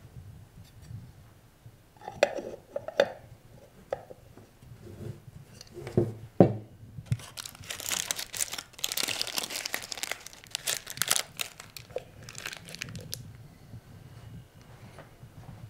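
Aluminium foil wrapper crinkling and rustling as it is unfolded by hand, for about six seconds in the middle. Before it come a few knocks and clinks of containers set down on a table.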